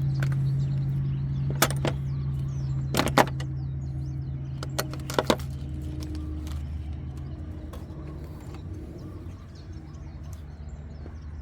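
A few sharp clicks and taps from handling the light wiring as it is routed and its slack pulled out, over a steady low mechanical hum that fades a little after about six seconds. Faint bird chirps sit in the background.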